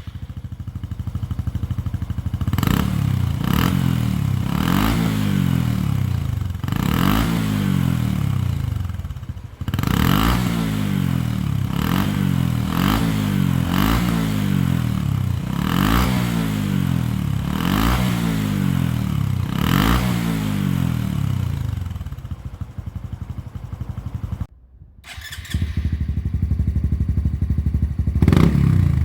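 Honda CT125 Hunter Cub's single-cylinder four-stroke engine exhausting through an OUTEX aftermarket muffler, revved in short blips about every two seconds and dropping back to idle between them. After a brief cut near the end it runs steadily again.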